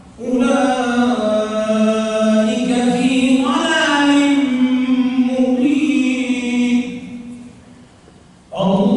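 A man's voice reciting the Quran aloud in slow, melodic tajweed chant into a microphone: one long drawn-out phrase that trails off into the room's echo, with the next phrase starting near the end.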